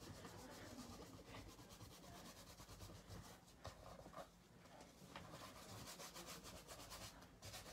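Faint rubbing of fingertips smearing and blending acrylic paint across a canvas.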